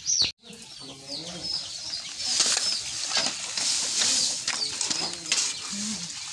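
Chickens clucking, with chicks peeping in many short, falling cheeps. A hiss rises for about two seconds in the middle.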